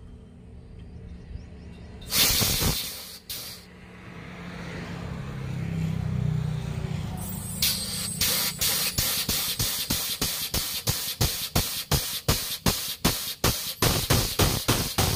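Compressed air hissing from an air-operated hydraulic bottle jack lifting a truck axle: two short blasts about two and three and a half seconds in, a building hiss, then rapid rhythmic air pulses of about three to four a second as the jack pumps.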